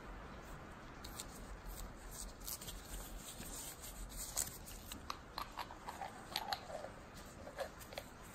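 Nitrile-gloved hands working grease onto the steel screw of a small screw jack: light clicks and short squeaky rubs of glove on greasy metal, scattered at first and more frequent after about four seconds, over a steady low hiss.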